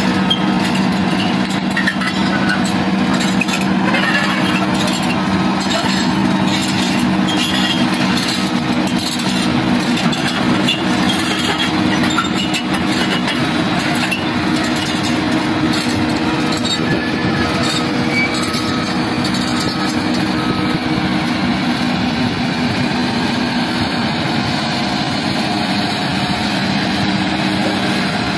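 Hitachi hydraulic crawler excavator's diesel engine running steadily under working load as it lifts and swings a steel pipe, with a few light knocks in the first dozen seconds.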